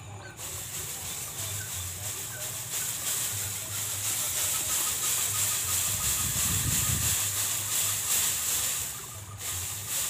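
Steady high-pitched hiss of insects in a rice paddy, with low wind rumble on the microphone that swells about six to seven seconds in.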